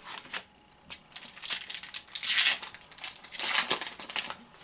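Trading card pack wrapper crinkling and rustling in the hands as the next pack is opened, in a series of bursts, loudest a little past two seconds in and again about three and a half seconds in.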